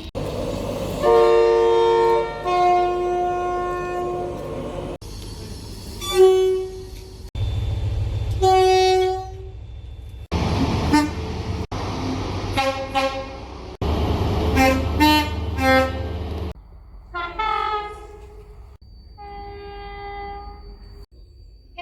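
A string of short clips of train horns sounding, cut together abruptly. There are two-tone horns blowing one note then another and several quick short toots, some over a low rumble.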